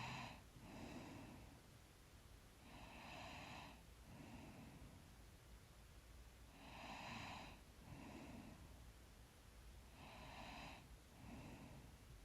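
Faint, slow breathing of a sleeping person close to the microphone. There are about four breath cycles, each a louder breath followed about a second later by a softer one.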